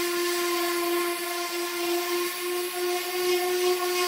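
Electric random orbital sander with 320-grit paper running on sheet aluminum: a steady motor whine with a hiss from the pad on the metal.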